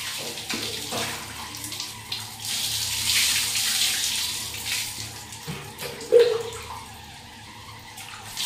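Water poured from a plastic mug over a lathered head, running and splashing down to rinse out shampoo, loudest between about two and five seconds in. A brief knock about six seconds in is the loudest moment.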